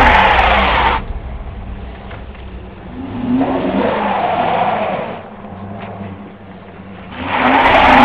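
The engine of a stuck truck revving while its rear tyre spins in packed snow and ice. This comes in three surges: one ending about a second in, one in the middle, and one building near the end.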